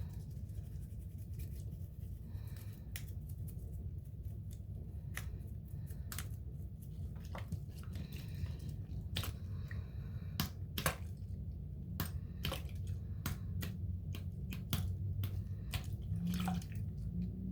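Pocket Swiss Army knife being handled and scrubbed in soapy water: wet squishing with many scattered sharp clicks of the metal tools.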